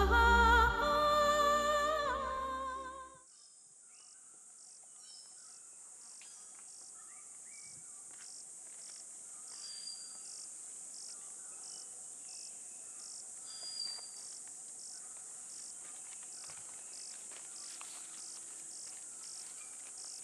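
Background music with a sung melody fades out about three seconds in, leaving a steady high drone of insects trilling in the forest, with an evenly repeating pulsed chirp over it and a couple of short higher chirps.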